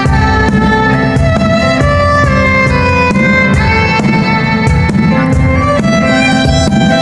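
Amplified violin playing a melody of held notes over a loud backing track with a steady beat and bass, recorded through a phone's microphone.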